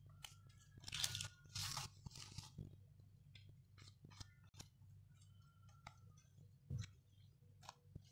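Thin warqa pastry sheets crinkling and crackling under the hands as they are folded and pressed over the filling, loudest between about one and two and a half seconds in, then a few faint scattered crackles.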